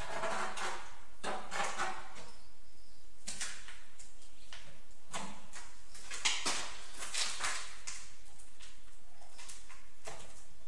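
Tile-setting work: a series of irregular scrapes and clinks, each lasting under a second, with one sharper click about six seconds in, as ceramic tiles and tools are handled and tiles are set on a mortared wall.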